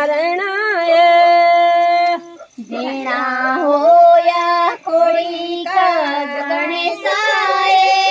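Women singing a Garhwali folk song unaccompanied, in long drawn-out held notes, phrase by phrase, with a short break about two seconds in.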